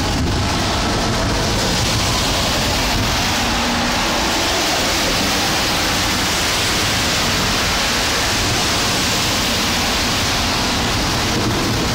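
Heavy rainstorm: a steady, even rush of pouring rain.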